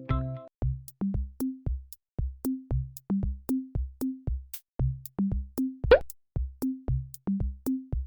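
Electronic background music: a drum-machine beat of short, pitched bass notes, about three a second, with a brief rising swoop about six seconds in.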